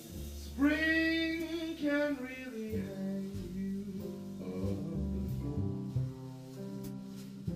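Live jazz: a male singer holds one sung note for about two seconds, starting about half a second in, over piano, double bass and drums; after it fades, the band plays on without voice.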